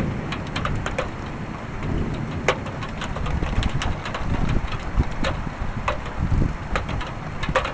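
Thunder rumbling on, a low uneven roll that swells and ebbs, with scattered sharp ticks of raindrops throughout.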